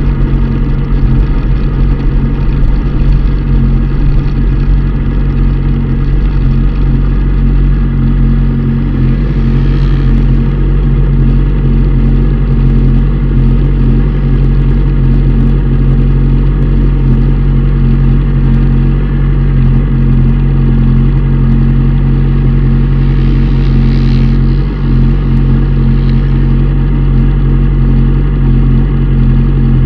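Motorcycle engine idling steadily, heard close up from a camera mounted on the bike.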